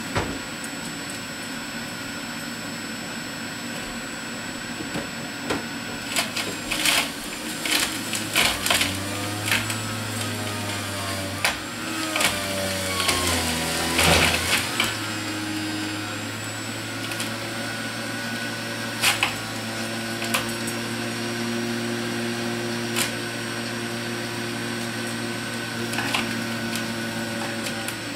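Breville Ikon juice fountain's motor running with a steady hum while vegetables are pushed down the feed chute: a dense stretch of loud crunching and grinding in the middle, during which the motor's tone bends under the load, then a steadier hum with a few sharp clicks near the end.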